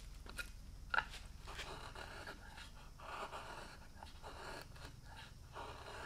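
A hand carving tool paring shavings from a cypress-wood toy canoe hull, in a run of short scraping cuts with a sharp click about a second in.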